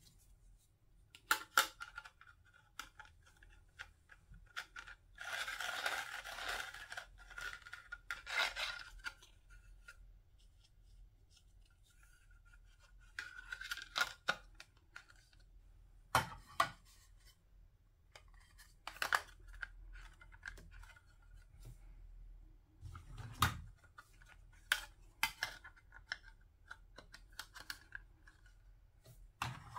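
Plastic play-food pieces being handled and stacked into a toy sandwich: scattered sharp clicks and taps as the slices are set down on one another. About five seconds in there is a few seconds of scratchy rubbing.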